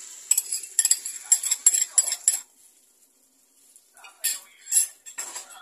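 A quick run of sharp clinks of kitchenware against a bowl and frying pan while beaten egg is poured in, then a quiet gap and a few more clinks about four seconds in.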